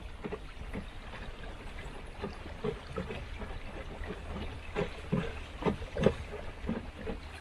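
Water gurgling and lapping against the hull of a wooden boat under way, in many small irregular splashes that grow louder about five to six seconds in, over a low steady rumble.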